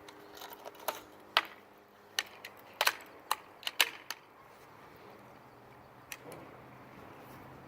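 A run of sharp, irregular metallic clicks and knocks, most of them between about one and four seconds in, from a .25 calibre PCP air rifle being handled and worked while lining up a shot.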